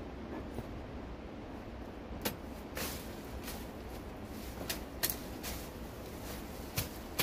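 Footsteps and brushing through dry leaves and undergrowth. From about two seconds in there is a run of irregular sharp crackles and snaps of dry plant matter.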